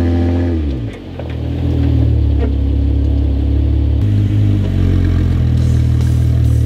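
2014 Jeep Wrangler Unlimited's 3.6-litre V6 engine pulling the Jeep up a loose, rocky slope. The revs fall about a second in, then hold steady, changing pitch again about four seconds in.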